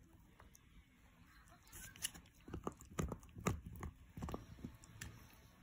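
Miniature schnauzer gnawing on a knotted chew bone. It makes irregular crunching and clicking bites that start about two seconds in.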